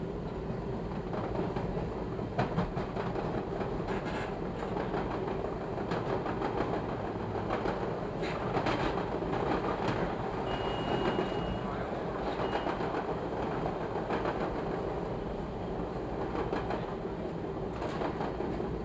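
Chicago 'L' rapid transit train running at speed, a steady rumble with wheels clicking over rail joints. A brief high-pitched whine sounds about halfway through.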